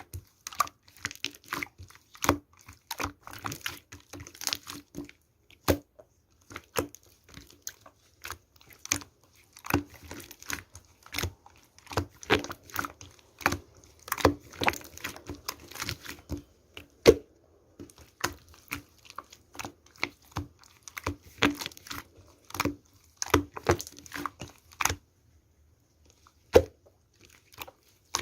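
Irregular runs of short, sharp crackles and crinkles, with a brief lull about three-quarters of the way through.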